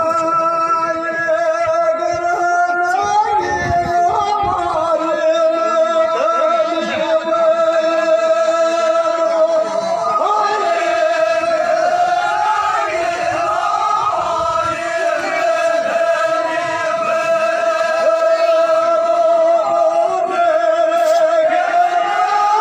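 Male folk singing: a loud, drawn-out melody in a high voice, with long notes held almost without a break.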